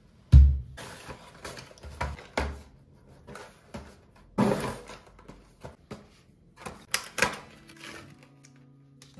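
Handling sounds of an acrylic coffee-capsule holder and cardboard capsule boxes being set down on a table and unpacked: knocks, clacks and cardboard rustling. The loudest is a heavy thump about half a second in.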